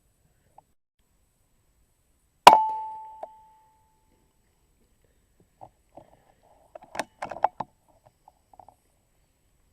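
A single sharp airgun shot about two and a half seconds in, with a metallic ring that fades over about a second, then a soft click. Later, a scatter of small clicks and knocks.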